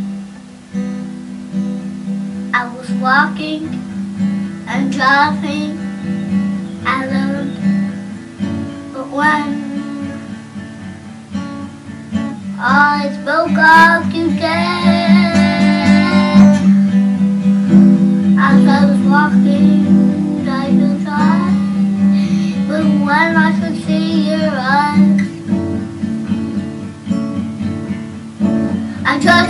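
Acoustic guitar strummed steadily through a stretch of a song with no sung lines.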